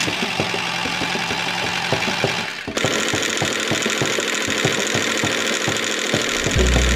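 A small engine-like motor running with a fast, uneven clatter of knocks. Its sound changes abruptly a little over halfway through, and a low steady bass, likely from background music, comes in near the end.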